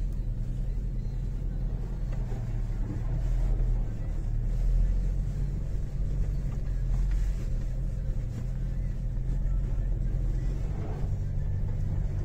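Car engine running as the car drives slowly along a muddy dirt road, the car sliding a little in the mud. A steady low drone that swells slightly about four seconds in.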